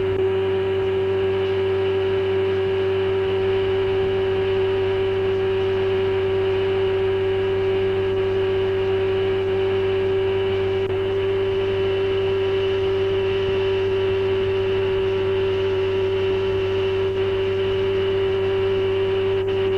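Tow boat's engine running at a steady speed, a constant unchanging drone.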